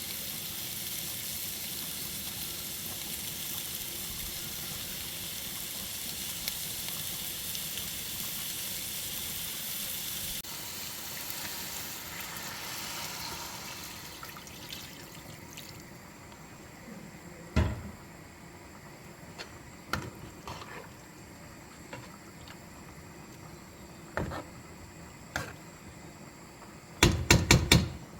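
Steady hiss from a cooking pan that fades away over about the first fifteen seconds. It is followed by scattered knocks and clatters of kitchenware, with a quick rattle of knocks near the end.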